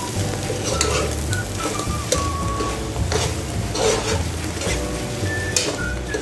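Metal spatula stirring and scraping chopped beef lungs in a nonstick pot while the food sizzles, with several sharper scrapes against the pot. A background music melody plays underneath.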